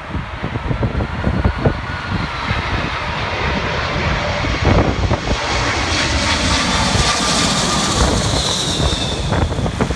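Boeing 747 on low final approach passing overhead: the roar of its four jet engines swells as it nears, with a high whine that falls in pitch as it goes over near the end. Gusty wind buffets the microphone throughout.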